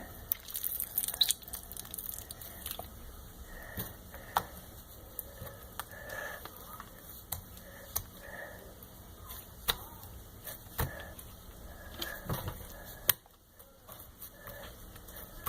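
Noise putty being squished and handled, giving scattered small squelches and clicks, with a sharp click about thirteen seconds in after which it goes quieter.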